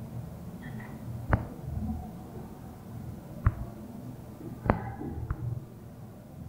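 A marker tapping sharply against a whiteboard as digits are written fast, four short knocks at uneven intervals over low background noise.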